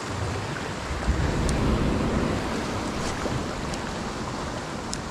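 Sea surf washing against rocks, a steady rush of water, with wind buffeting the microphone as a low rumble that strengthens about a second in.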